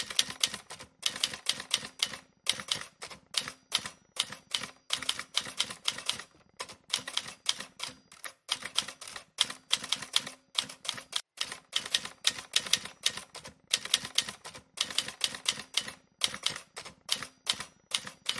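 Lynk & Co 05 panoramic sunroof sunshade and its slide rail clicking: rapid, irregular ticks in clusters of several per second. This is the abnormal noise the car develops once the shade is opened, a fault at about 20,000 km.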